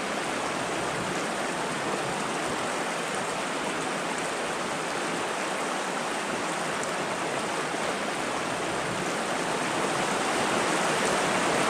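Small rocky creek flowing: a steady rush of water.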